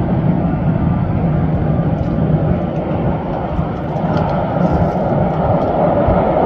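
Boeing 757 jet engines running as the airliner rolls along the runway, heard from a distance as a loud, steady, low rumble with a faint hum underneath.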